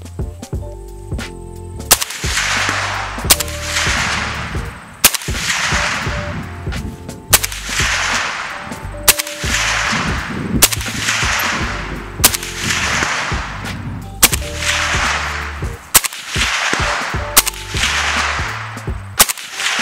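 Suppressed AK rifle firing single shots at a slow, steady pace, about ten in all roughly every one and a half to two seconds, each a sharp report with a trailing echo. Background music with a steady bass line plays underneath.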